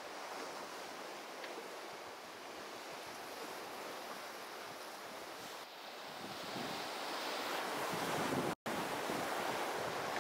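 Sea waves and wind rushing past a sailing trimaran, with wind buffeting the microphone. It grows louder from about six seconds in and cuts out for an instant near the end.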